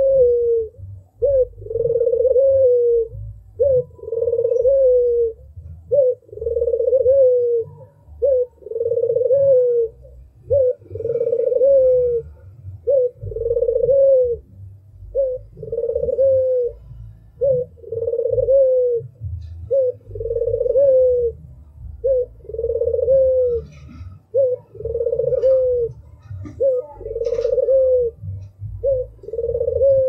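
Albino Barbary dove (puter) cooing over and over: a steady run of two-part calls, a short note followed by a longer drawn-out coo that falls away at the end, repeating about every second and a half. A low rumble runs underneath.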